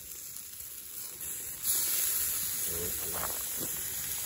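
Steaks sizzling on an iron grate over wood coals. The sizzle jumps louder and brighter a little before halfway, as a steak is turned over with a fork.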